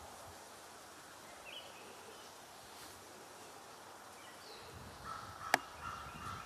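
Outdoor ambience with a few faint, short bird chirps. A single sharp click comes about five and a half seconds in, and a high, slightly broken steady call starts just before it and carries on to the end.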